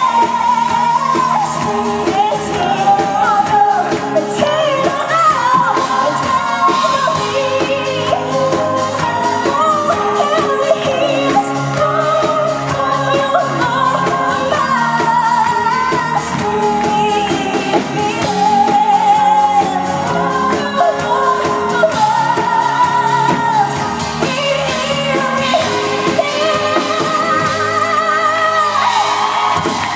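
Pop song performed on stage: singing over a band with drums and electric guitar.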